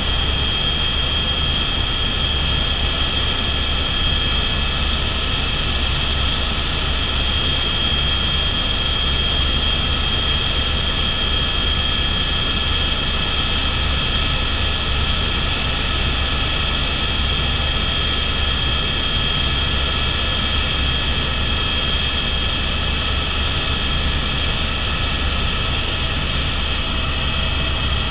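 Airbus H125 (AS350 Squirrel) helicopter in steady cruise, heard from inside the cabin: its single turbine engine and main rotor make a steady low drone with a high whine over it.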